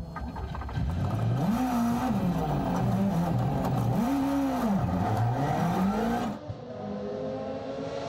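A WRC rally car's engine revving hard between corners, its pitch climbing and dropping again several times as it accelerates and backs off. About six seconds in the sound cuts to a quieter, steadier engine note.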